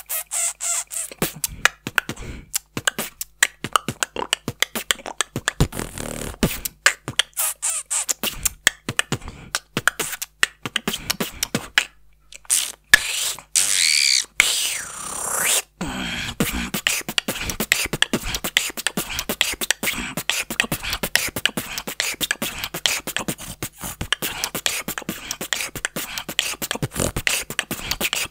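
Beatboxing freestyle: fast, dense mouth-percussion patterns built on tongue-slap clicks. About halfway through, a high-pitched, gliding whistle-like vortex sound is held for a few seconds before the percussion resumes.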